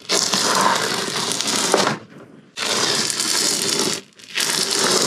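A wide hand scraper scraping along the camper's fiberglass wall to lift old peel-and-stick tile and its residue. There are three strokes: a long one of about two seconds, a shorter one, then a brief one near the end.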